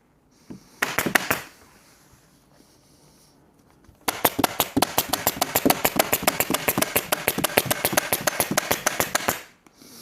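Upholstery staple gun firing: a short burst of a few sharp clicks about a second in, then a long rapid run of clicks at about ten a second for some five seconds, fixing canvas over the seat webbing.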